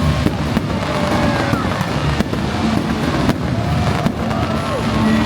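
Fireworks going off: repeated bangs and crackling, with whistles gliding up and down in pitch, over steady low music.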